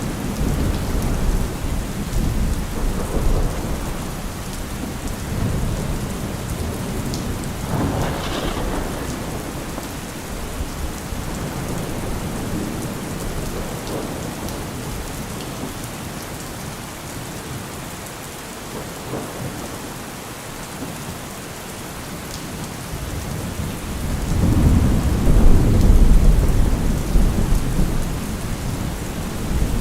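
Steady rain with rolling thunder: a sharper clap about eight seconds in, a quieter lull past the middle, then a long deep rumble near the end, the loudest part.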